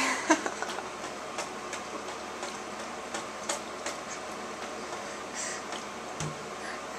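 Scattered light taps and knocks of a small rubber toy and a baby's hands against a bathtub wall, a dozen or so spread irregularly, over a steady background hiss, with one dull low thump near the end.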